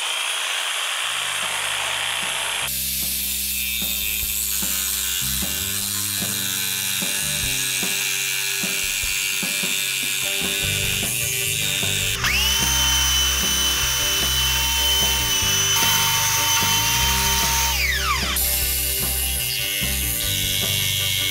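Electric jigsaw cutting a thin metal plate, the reciprocating blade chattering against the sheet. A motor whine holds steady for several seconds and then winds down quickly near the end as the saw is switched off. Background music plays underneath.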